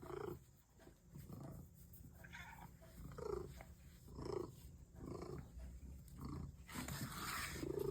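Faint animal vocal sounds, short and repeated about once a second.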